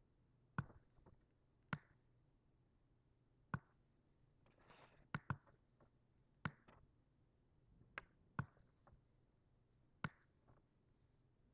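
Computer mouse clicking: about nine sharp single clicks at irregular spacing over near silence, two of them in quick succession about five seconds in.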